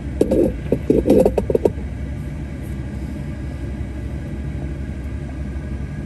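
Steady low rumble of a car driving, heard from inside the vehicle. A quick run of sharp knocks and rattles comes in the first second and a half.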